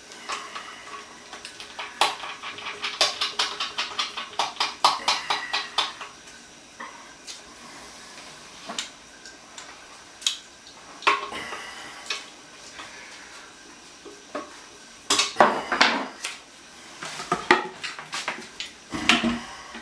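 Screwdriver clicking and clinking against a porcelain toilet bowl: a run of quick clicks, about five a second, then scattered sharp knocks with a busier cluster near the end.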